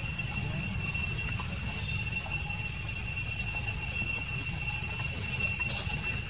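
Forest ambience: a steady, high-pitched insect drone holding several constant tones, with a low rumble underneath.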